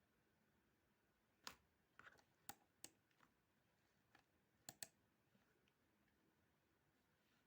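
Faint computer mouse clicks: a handful of sharp single clicks in the first half, then a quick double click, against near-silent room tone.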